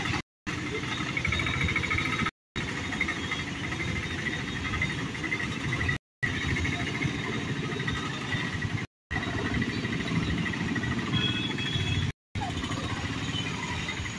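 Road traffic crossing a railway level crossing: motorcycles and small motor vehicles running and passing, with voices among them. A faint high pulsing sound runs over the engine noise. The sound cuts out completely for a split second several times.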